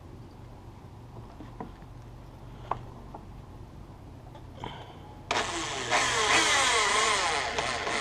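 Power drill driving a decking screw into a green-treated deck board, starting about five seconds in and running for nearly three seconds, its pitch wavering as the load changes. Before it, a low steady hum and a few light knocks.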